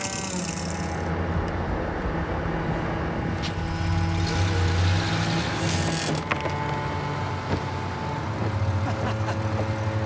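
A heavy engine from tree-removal machinery running steadily, louder about four to five seconds in, with a few short knocks.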